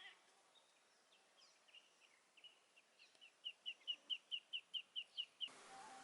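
A small wild bird calling: a few scattered faint chirps, then a fast run of about a dozen short, sharp chirps at roughly five a second in the second half. Background music comes in just before the end.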